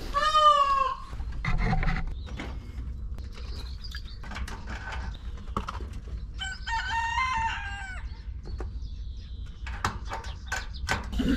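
Rooster crowing twice, once at the start and again, higher-pitched, about two-thirds of the way through. Scattered knocks and clicks come near the end.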